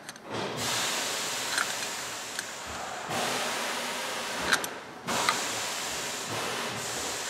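Wrench on the 15 mm nut of a valve spring compressor on a Cummins 12-valve cylinder head, ratcheting back and forth as it tightens down to compress a valve spring, with a few sharp metal clicks.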